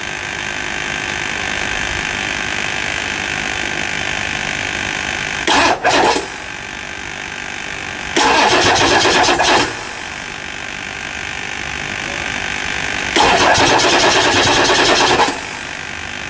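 1999 Ford F350's 7.3 L Power Stroke V8 diesel cranking on the starter in a hard start, after injector cup replacement left oil in the cylinders. Three louder bursts of noise break in, about six, eight and thirteen seconds in, the last lasting about two seconds.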